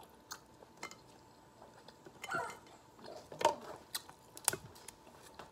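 King crab leg shell being cracked and picked apart by hand, with chewing: a scattering of sharp snaps and clicks, the loudest about three and a half seconds in.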